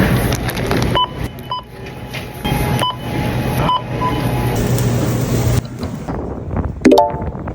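Short, high electronic beeps from a checkout barcode scanner, five within a few seconds, over a steady low hum.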